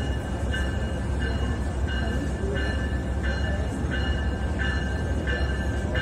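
Locomotive bell ringing steadily, about three strikes every two seconds, as a train approaches the platform, over a deep rumble of the train.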